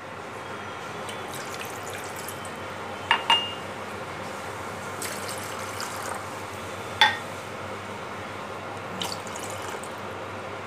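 Water in a stainless steel saucepan, a steady watery hiss, with a few sharp metallic clinks: two about three seconds in, one about seven seconds in and a fainter one near nine seconds.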